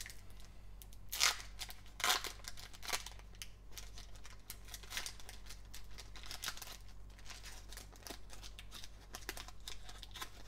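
Foil wrapper of a Panini Select trading-card pack being torn open and crinkled by hand. The two loudest crackles come about a second and two seconds in, followed by a run of smaller crackles.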